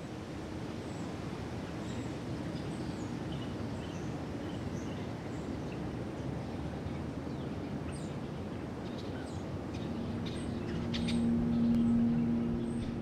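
Outdoor ambience: a steady rushing noise with scattered short bird chirps. From about ten seconds in, several low sustained tones swell in and become the loudest sound near the end.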